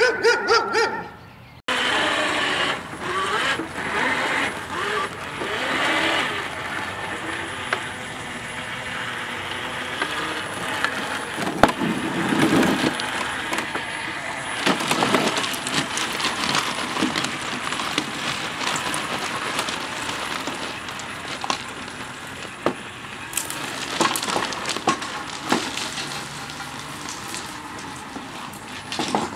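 Yarbo tracked yard robot with its S1 attachment driving: a rough, crackling clatter with many sharp clicks, over a faint steady high whine. The sound changes abruptly near 2 s in.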